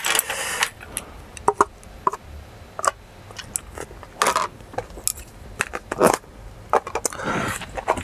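Cooked rice being tipped out of thin plastic containers into a stainless-steel mixing bowl: scattered sharp clicks and knocks of the plastic, with crackling rustles of the plastic being squeezed, at the start, about four and six seconds in, and near the end.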